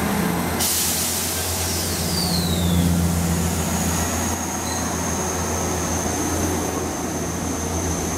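A multiple unit running past close by: a rushing hiss from its passage about half a second in, a falling whine, then a steady high-pitched whine, over the constant low hum of a Class 158 diesel multiple unit's engine.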